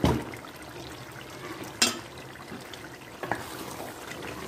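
A spoon stirring and scraping thick curry in a metal cooking pot while it sizzles, with a sharp clink of the utensil against the pot about two seconds in and a lighter one a little later.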